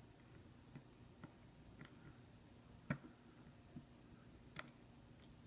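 Faint, scattered clicks and taps of small repair tools against the phone, about seven in all, the sharpest about three and four and a half seconds in.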